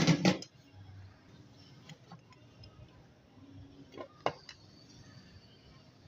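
Kitchen utensils clattering: a quick run of loud knocks at the start, then faint scattered ticks and one more sharp click about four seconds in.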